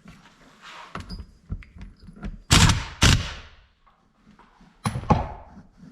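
Metal parts and tools being handled and knocked together: a series of clanks with brief metallic ringing, the loudest two about two and a half to three seconds in and another about five seconds in.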